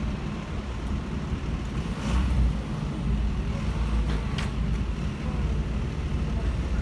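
Steady low engine rumble, with a couple of faint knocks about two and four seconds in.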